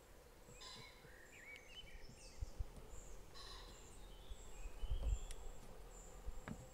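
Small birds chirping and twittering in short, scattered calls, with a few low thumps and rumbles underneath.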